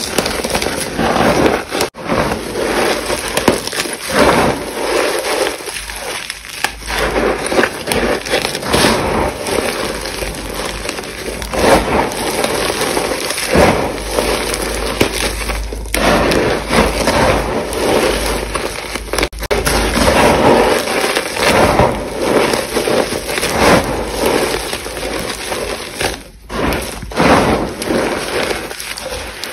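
Reformed chalk and school chalk sticks being crushed and crumbled by hand: dense crunching and crackling full of short sharp cracks, with a few brief gaps.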